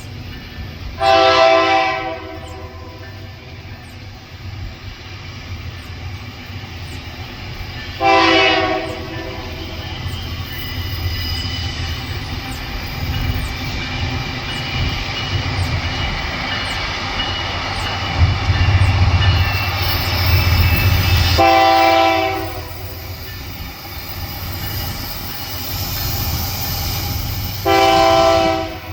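Freight train led by four GE/Wabtec AC44i diesel-electric locomotives sounding its multi-note horn in four short blasts of about a second each: near the start, about eight seconds in, about twenty-one seconds in and near the end. Between blasts the low rumble of the locomotives runs steadily, growing louder from about eighteen to twenty-one seconds in.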